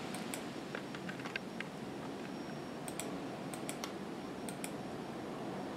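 A scattering of faint, short clicks from a computer mouse over a steady background hiss.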